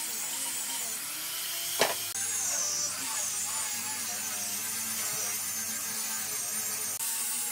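Angle grinder fitted with a sanding disc, running steadily while sanding wooden pallet boards, with a wavering high whine. A single sharp click comes a little under two seconds in.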